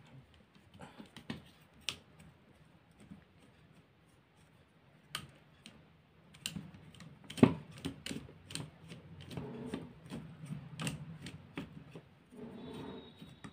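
Scattered light clicks and taps of small metal and plastic parts handled by hand as a vacuum cleaner motor's wire connector and brush holders are pulled loose, with one sharper click about seven seconds in.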